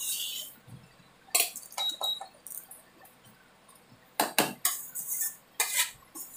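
Metal spatula scraping and clinking against a metal kadhai as a thick ground-almond halwa mixture is stirred while it roasts, in irregular strokes, the loudest about four seconds in.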